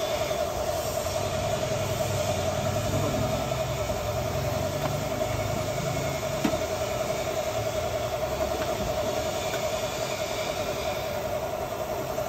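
A steady mechanical drone with a constant mid-pitched hum and low rumble, unchanging throughout, with a single faint click about six and a half seconds in.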